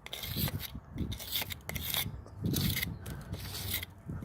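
Drill bit raking out soft old mortar from the joints between bricks: an irregular scraping and grinding in short bursts with brief pauses.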